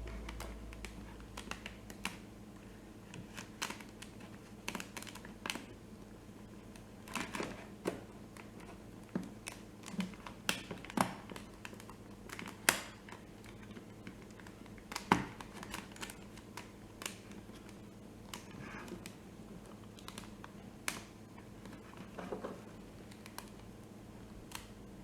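Plastic parts of a TV remote control being handled and worked apart: scattered, irregular small clicks and taps, with a couple of louder snaps about halfway through.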